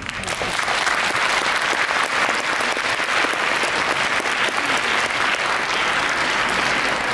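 Audience applauding, steady clapping throughout.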